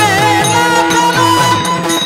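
Devotional kirtan music: a steady drone under repeated low drum strokes, about three to four a second, each dropping in pitch, with a melodic line gliding up and down above them.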